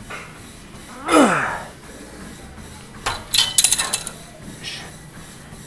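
A man grunting with effort through a heavy lift: one loud grunt falling in pitch about a second in. About three seconds in comes a quick run of metal weights clinking and clanking together.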